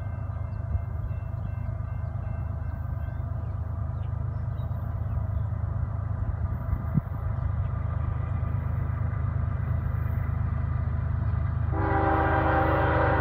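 Steady low rumble of an approaching CSX freight train, with a brief knock about seven seconds in. Near the end the locomotive's air horn starts blowing, a loud multi-note chord held steady, as the train nears the crossing.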